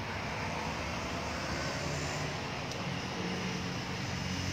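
Steady low rumble of motor vehicle engine noise under a constant hiss, with no single event standing out.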